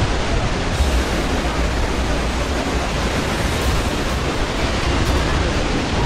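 Steady, loud rush of Athirappilly Falls, a large waterfall on the Chalakudy River, heard close to its plunge pool.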